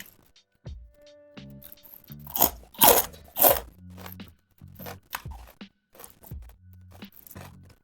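Crisp deep-fried small river fish (ikan wader) being bitten and chewed, its bones included, with a run of loud crunches in the middle and smaller crunches around them, over background music.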